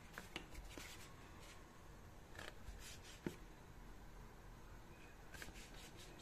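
Faint taps and scrapes of a plastic bench scraper cutting a roll of dough into pieces against a silicone baking mat, with one sharper click about three seconds in.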